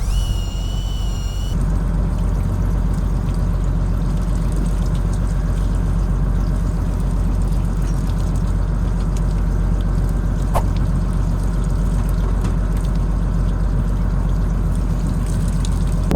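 Steady low hum of a fishing boat's engine running, with a short high whine at the very start.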